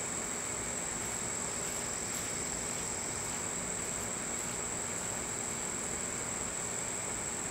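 Insect chorus of crickets or katydids: a continuous high-pitched drone that holds steady throughout, over a steady background hiss.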